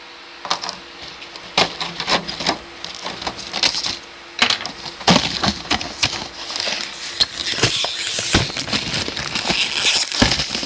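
Foil seasoning sachet crinkling and crackling as it is handled and cut open with a kitchen knife: irregular crackles starting about half a second in, with a short lull near the middle and busier after it.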